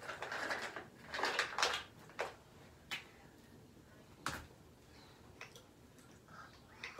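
Handling noises on a tabletop: two short bursts of rustling in the first two seconds, then a few separate sharp clicks and taps.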